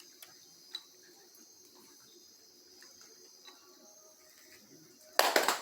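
Crickets chirping steadily, with a few faint taps. Just before the end, Afro-Brazilian ritual drums and percussion come in loudly as the next song for Xangô begins.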